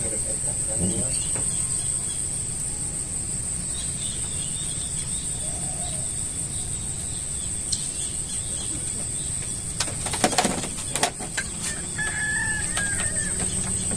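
Outdoor ambience: a steady high-pitched drone over a low rumble, with a few short bird calls and a quick run of clicks and knocks about ten seconds in.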